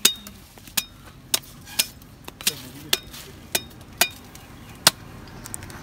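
A blade chopping at a coconut: about ten sharp chops, roughly two a second and unevenly spaced, as the husk is trimmed to open it.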